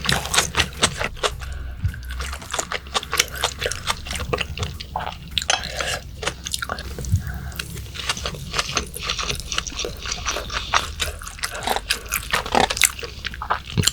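Close-miked, wet chewing of raw yellowtail sashimi: a dense, irregular run of sticky mouth smacks and clicks with no pauses.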